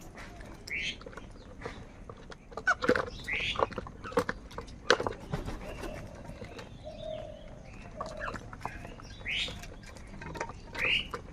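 Crows calling: a scatter of short calls, several of them sharply rising, mixed with sharp clicks and knocks.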